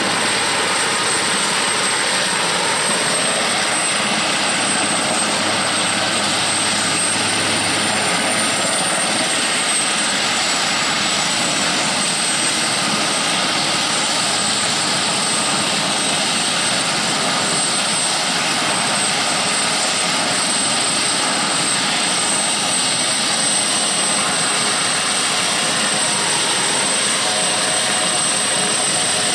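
Eurocopter AS532 Cougar twin-turboshaft helicopter running on the ground with its rotors turning: a steady, loud rush of engine and rotor noise with a thin, high turbine whine held on top.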